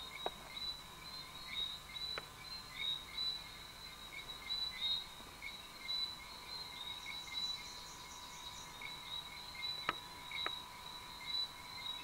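Rainforest insect chorus: a steady, high, pulsing chirring that carries on without a break. A few sharp clicks stand out, once near the start, about two seconds in and twice near the end.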